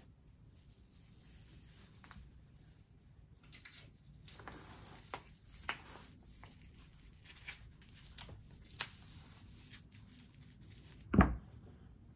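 Posture-correction belt being put on like a backpack: its fabric straps rustle and are tugged tight, with scattered small clicks, and one louder thump near the end.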